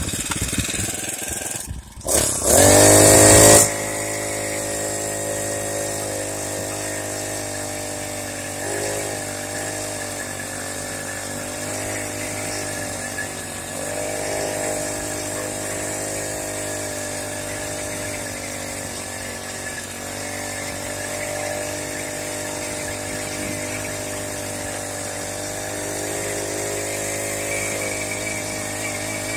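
Small motorized-bicycle engine running steadily, its pitch drifting up and down a little, with a short break just before two seconds in and a louder burst of revving from about two and a half to three and a half seconds in.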